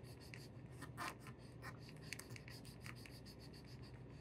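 Cotton-tipped applicator, wet with neutralizer, scrubbing a wooden mannequin's surface: faint, irregular scratchy rubbing with small ticks, over a faint steady low hum.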